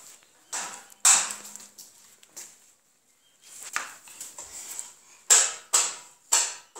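A series of sharp, irregular knocks and crunches, about seven in all, each dying away quickly, with three loud ones in quick succession near the end: hard objects being handled and struck.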